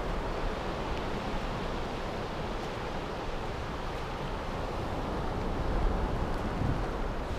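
Ocean surf breaking and washing up a sandy beach: a steady rush of wave noise.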